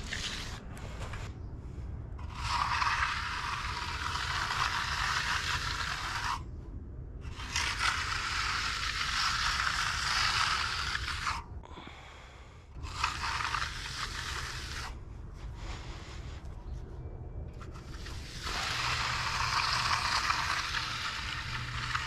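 Hand float and steel trowel scraping across the surface of freshly poured, still-wet concrete in long strokes of several seconds each, with short pauses between them. The passes are finishing the slab, knocking out the lines left by the edger and jointer.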